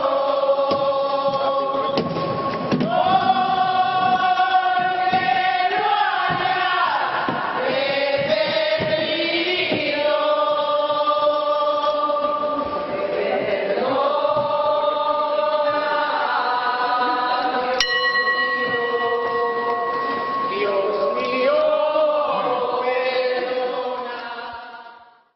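A group of voices singing a slow religious chant in unison, with long held notes and smooth slides from one pitch to the next. The singing fades out near the end.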